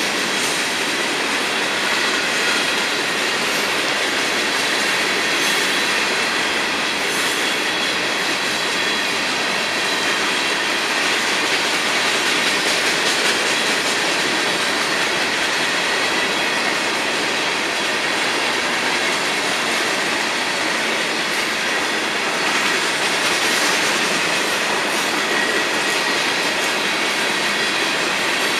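Florida East Coast freight train's hopper cars rolling steadily past: a constant rush of wheel-on-rail noise with faint high ringing tones running through it.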